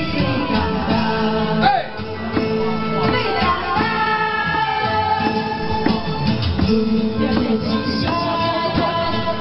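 Music with singing: a held, gliding sung melody over instrumental backing.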